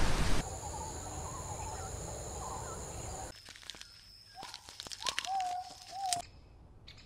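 Outdoor nature ambience. Steady insect-like high drone with faint chirps at first, then, about three seconds in, a quieter bed of scattered clicks and short whistled bird-like calls.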